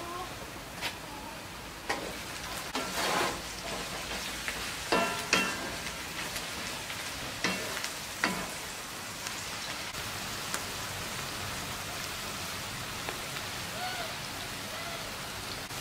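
A wooden spoon knocks and scrapes against a metal pan several times while stirring noodles, over a steady hiss. The knocking stops after about eight seconds and the hiss carries on.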